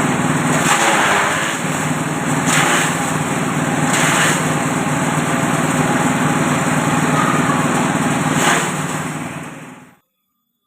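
A multipurpose JG 125 chopper machine runs steadily with a small-engine drone. Short bursts of rushing noise rise over it four times. The sound cuts off abruptly near the end.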